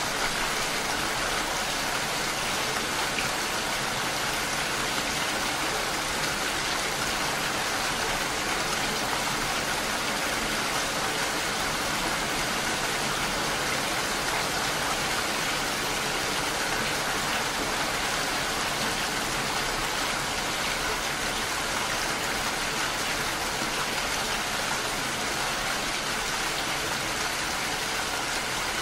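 Steady rain: a dense, even hiss of falling rain that holds at the same level throughout.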